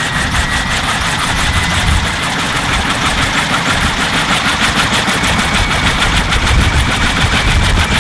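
Kaman K-MAX helicopter's intermeshing twin rotors spinning up on the ground. The turbine whine rises slightly in pitch under a rapid, even blade chop that quickens as the rotors gather speed.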